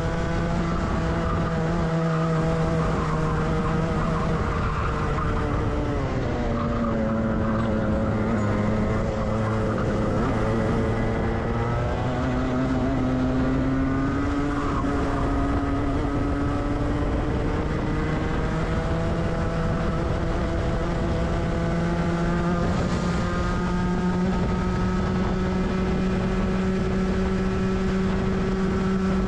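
Rotax two-stroke kart engine heard onboard at racing speed. Its pitch drops about six seconds in as the revs fall, stays low for a few seconds, then climbs steadily as the kart accelerates and holds high near the end.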